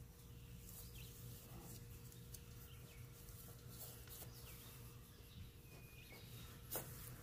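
Quiet room tone with a steady low hum, faint short chirps repeating every second or so, and soft rustles of flour tortillas being laid into a cast-iron skillet; a single sharp click near the end.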